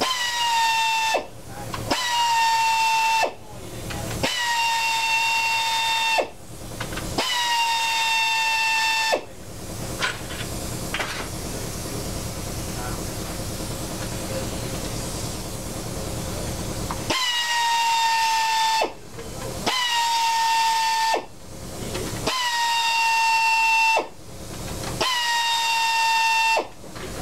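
Pneumatic drill-driver on an air hose spinning out screws in short bursts: about eight runs of a high whine, each dipping slightly at the start and then holding a steady pitch, with brief pauses between. A rougher stretch of noise without the whine comes midway.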